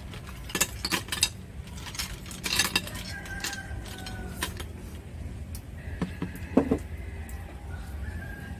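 Chopsticks and snail shells clinking against ceramic bowls: scattered sharp clinks, thickest in the first three seconds, with a couple of heavier knocks past the middle, over a steady low hum.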